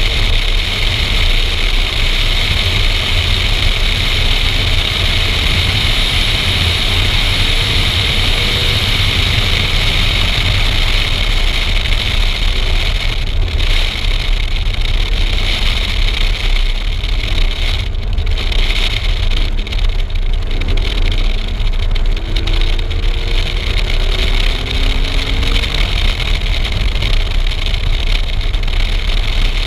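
Car driven at speed on a race track, heard mostly as loud, steady wind rush and rumble on an outside-mounted microphone. The engine note sits faint underneath, its pitch gliding up a few times as the car accelerates.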